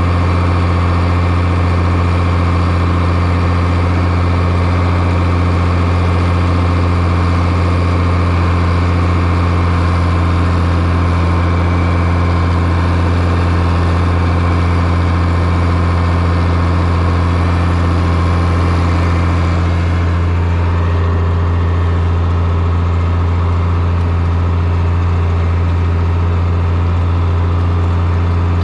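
John Deere New Generation tractor engine running steadily under load, pulling a disk harrow across a worked field, a constant low-pitched drone with no change in speed.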